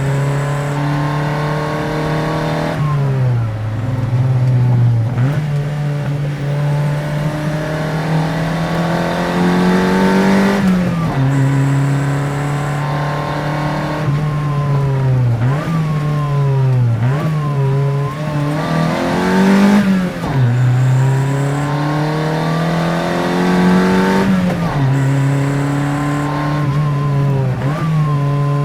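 Toyota Corolla FX-GT's 4A-GE twin-cam four-cylinder engine pulling under acceleration. It climbs in pitch and drops sharply at each gear change, about six times.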